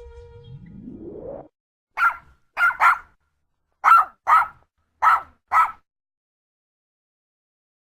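A rising sweep lasting about a second and a half, then a Yorkshire terrier barking: seven short, sharp, high barks, mostly in quick pairs, over about four seconds.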